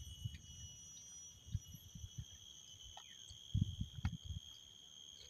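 Faint, steady, high-pitched insect chirring, with a few low dull knocks about one and a half seconds in and again around three and a half to four seconds in.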